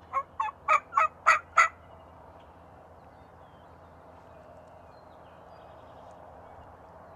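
Eastern wild turkey toms gobbling: a quick series of about six loud notes in the first two seconds, then the gobbling stops and only faint steady background noise remains.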